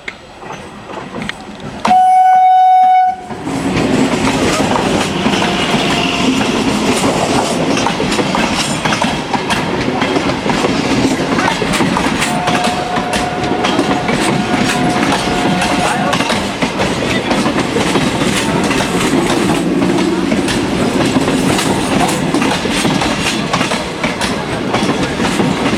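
An Indian Railways train sounds one loud horn blast lasting about a second, then passes close at speed with its wheels clattering over the rail joints. A fainter horn tone sounds again for a few seconds midway.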